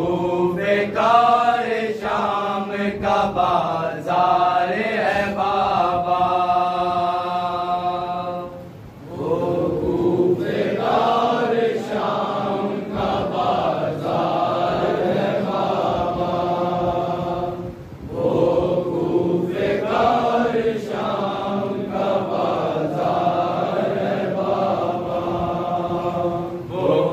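Men's voices chanting a nauha, a Shia lament for Muharram, in long drawn-out melodic lines. The chant breaks off briefly twice, about a third and two thirds of the way through.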